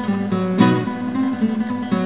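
Background music on acoustic guitar: plucked notes moving in a steady melody, with a strummed chord about half a second in.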